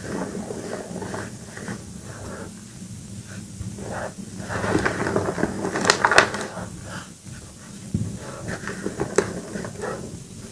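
Soft Reform gym chalk discs and cubes crushed and crumbled between the hands, powder squeezed and falling in a steady crumbly crunch. The crunching gets louder just past the middle with a few sharp cracks, and there is one more crack near the end.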